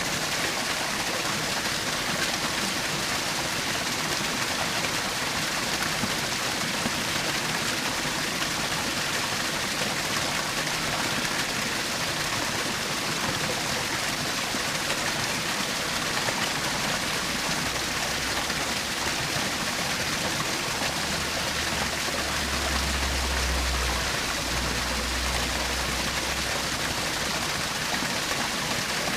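Small forest waterfall splashing and rushing steadily. A low rumble joins in for several seconds in the second half.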